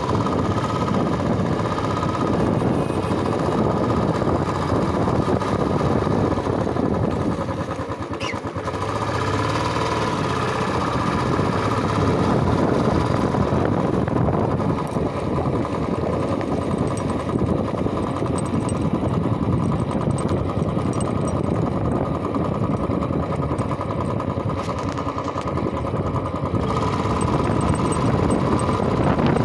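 Royal Enfield motorcycle engine running steadily while the bike rides along a road, heard from the rider's seat.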